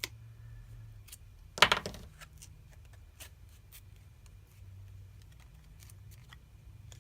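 Plastic opening picks clicking and scraping against a phone's glass back and frame as they are worked under it to cut the adhesive strands, in light scattered ticks with one louder clatter about a second and a half in.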